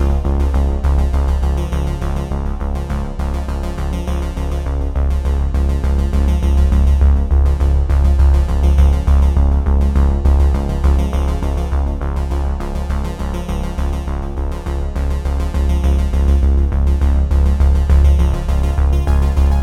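Background electronic music with synthesizer and a strong, steady bass beat.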